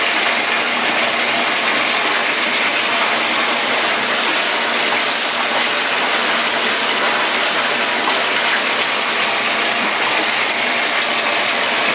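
Whirlpool bathtub jets running: a steady, loud rush of churning water with the pump motor underneath.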